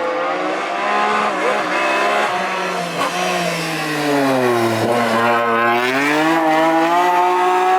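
Rally car engine running hard on a stage: the revs wander, sink to a low point about five seconds in, then climb steadily as it accelerates again.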